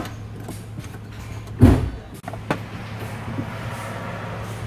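A single heavy thump about a second and a half in, then a lighter click, over a steady low hum.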